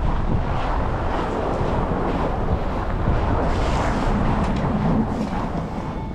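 Strong storm wind buffeting the action camera's microphone: a continuous low rushing noise that swells with the gusts and eases a little near the end.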